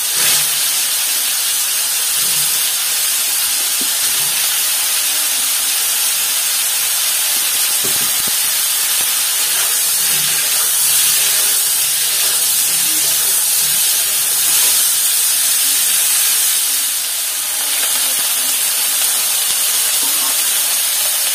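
Parboiled cauliflower florets sizzling steadily in hot oil in a steel kadai, stirred now and then with a spatula.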